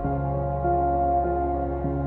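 Soft ambient background music: sustained notes over a steady bass, the chord changing about once a second.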